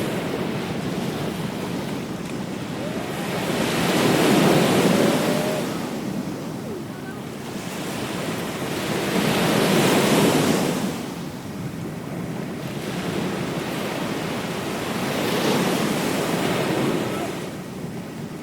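Ocean waves breaking on a beach, each swell rising to a loud wash of surf and then falling back, about every five or six seconds, three times. Wind on the microphone adds a steady rush underneath.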